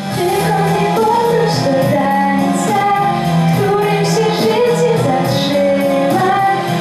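A teenage girl singing a gentle song into a microphone over instrumental accompaniment, with long held notes that glide between pitches.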